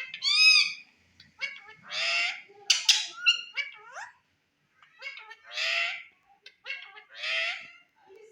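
Indian ringneck parakeet calling: an arched squawk near the start, then four harsh squawks about half a second each, spaced a second or two apart, with short chirps and clicks between them.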